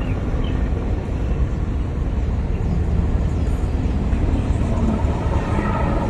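Black Hawk helicopter flying overhead, its rotor and engines making a steady low rumble.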